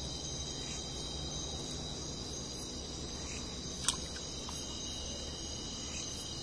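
Steady chorus of night insects, several high-pitched trills at different pitches at once, with one sharp click about four seconds in.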